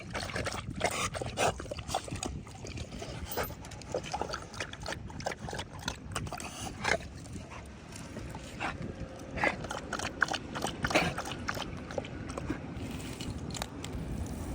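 A dog making short, irregular noises, with a few louder ones about two-thirds of the way through.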